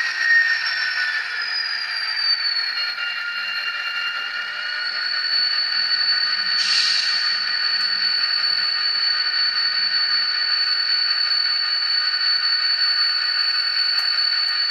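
Factory-installed ESU LokSound decoder in an Atlas N scale GP30 playing simulated EMD diesel engine sound through its tiny speaker: a thin, high-pitched steady drone of several held tones, falling in pitch over the first few seconds, with a short burst of hiss about seven seconds in.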